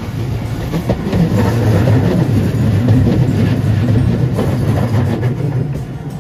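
Hiroden streetcar no. 3908, an articulated tram, passing close by. Its wheels rumble on the rails with a few clicks, the sound swelling about a second in and fading near the end.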